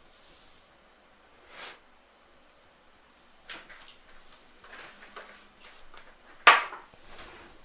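Handling noises in a small room: a few short scrapes and rubs, with the loudest near the end, a sudden slide-and-knock that fades quickly.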